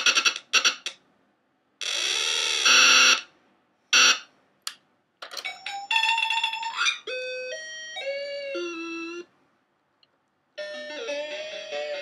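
Circuit-bent VTech Groovy Tunes Radio toy playing its electronic tunes and sound effects in a glitchy, chopped way as its buttons are pressed. A fast stutter comes first, then a harsh buzz, a few clicks, and snatches of a stepping melody broken by short gaps.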